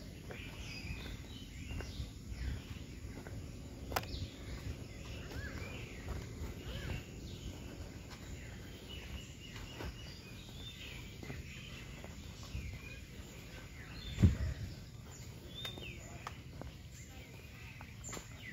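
Outdoor ambience: birds chirping on and off over a low rumble of handling noise from a camera carried on foot, with faint distant voices. A sharp click about four seconds in, and a dull thump about three-quarters of the way through, the loudest sound here.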